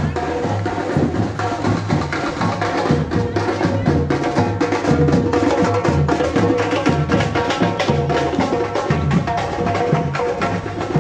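Street drum band playing a fast, busy beat on snare and bass drums, with dense sharp strokes over heavy low beats.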